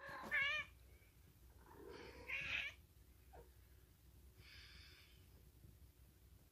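Kittens mewing: a short, high, wavering mew at the start, a second about two seconds in, and a fainter one a couple of seconds later.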